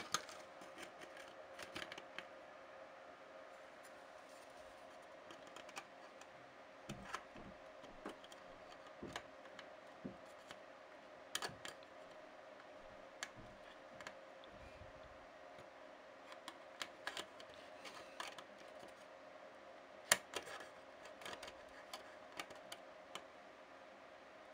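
Scattered small clicks and taps of hand tools on a laptop circuit board during soldering work, over a faint steady hum.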